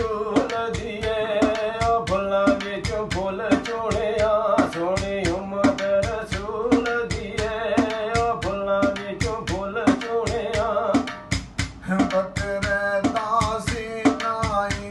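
Male voice singing Punjabi tappe/mahiye folk verses over a hand drum played in a quick, steady beat. The singing breaks off briefly around eleven seconds in while the drum carries on.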